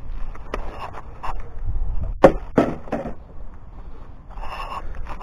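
A few sharp knocks and clicks, the loudest two close together a little after two seconds in.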